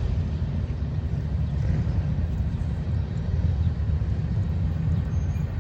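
Freight train rolling past, giving a steady low rumble.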